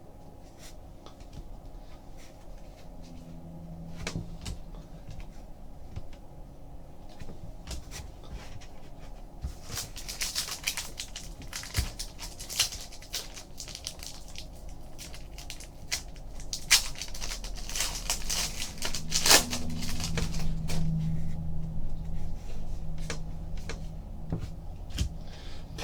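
Trading cards being handled: scattered soft clicks and slaps of card stock, with two stretches of rustling near the middle and about two-thirds of the way through, over a low steady hum.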